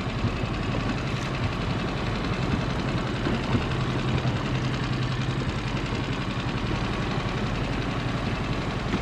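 A boat's motor idling with a steady, low chugging hum.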